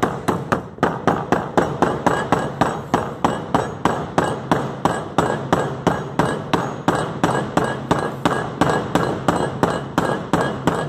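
Rubber mallet tapping a new press-fit bushing into the top of a DMS 50 mm coilover strut body, a steady run of quick taps at about four a second, starting the bushing in before it is finished in the press.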